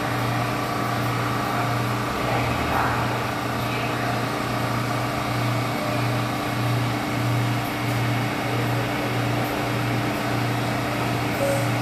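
New York City subway train standing in the station with its doors open, its onboard equipment giving a steady hum with a low note that swells and fades in a regular pulse, roughly twice a second.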